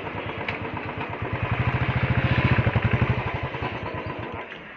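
Royal Enfield 350 single-cylinder motorcycle engine running at low revs with an even pulsing beat, swelling slightly midway and then dying away near the end as the bike is brought to a stop.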